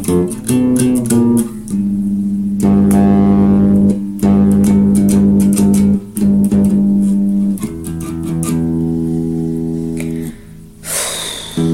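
Electric bass guitar played solo in a freestyle line of held notes, each ringing for a second or so with short breaks between them. Near the end the notes stop briefly and a short rush of hiss is heard before playing resumes.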